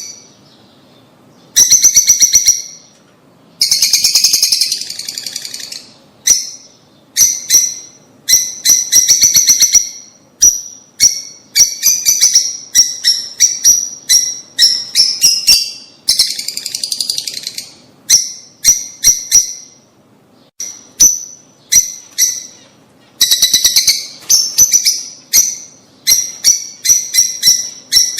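Lovebirds chirping: bursts of rapid, shrill chirps in quick runs, separated by short pauses.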